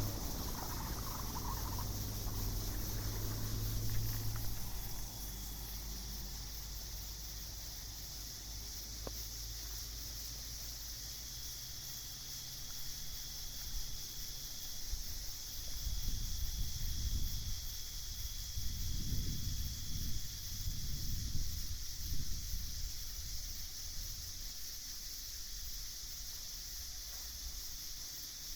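Night insect chorus, crickets chirring steadily high up, over a low rumble that swells in several surges in the second half.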